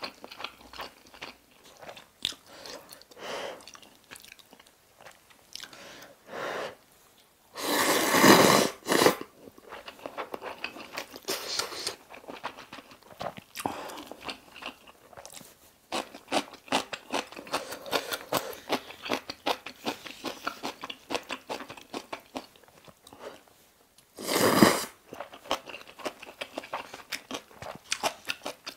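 A person chewing instant ramen noodles and kimchi with many small wet clicks and crunches, broken twice by a loud noodle slurp lasting about a second, once early on the way in and once near the end.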